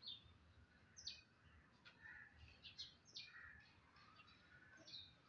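Small birds chirping faintly outdoors, short high chirps scattered irregularly through.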